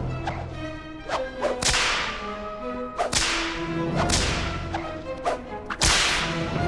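Cartoon whip sound effects: several sharp cracks and swishes, the loudest about three seconds in and again near six seconds, with music held underneath.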